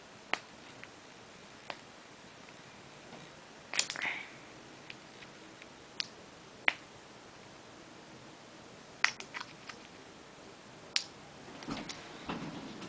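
Scattered sharp clicks and crackles of stiff plastic toy packaging being worked at by hand, as a part is pried out of it, with soft rustling near the end.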